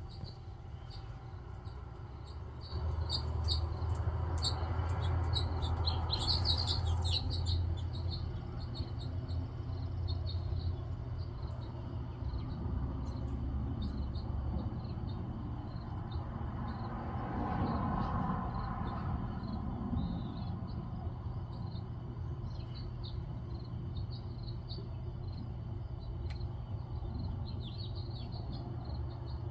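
Small birds chirping in short repeated notes, over a steady low hum that is louder for the first half.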